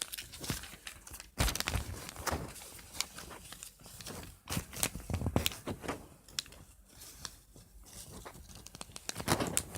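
A sheet of paper being handled and folded: irregular crinkling and rustling with sharp crackles as it is creased, and a few dull thumps.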